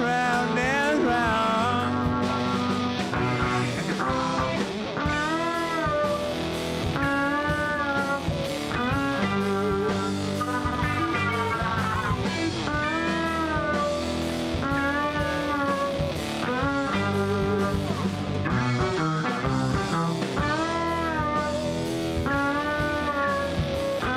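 Live band playing an instrumental passage on electric guitars, bowed electric upright bass and drum kit. A lead line repeats short phrases of bending, gliding notes over the rhythm.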